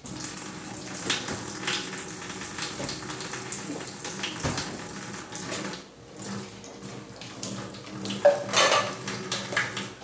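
Water running from a tap into a sink while dishes and utensils are washed, with scattered clatter of items knocking together and a louder clatter about eight seconds in.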